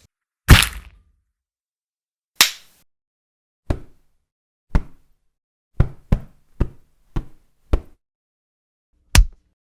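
Punch sound effects: a series of about ten sharp hits with short tails. The first blows come a second or two apart, then a quicker flurry of punches follows, about half a second apart.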